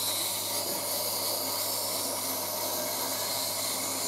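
Tormek T-7 wet sharpening machine running, with a knife blade held on its wet grinding stone: a steady grinding hiss over the low hum of the motor.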